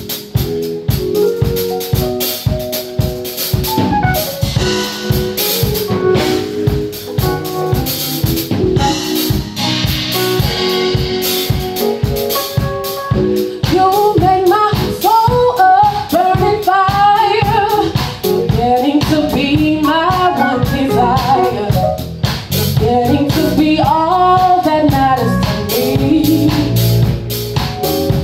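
Live band playing a soul groove: electric keyboard chords and electric bass over a steady beat. A woman starts singing about halfway through.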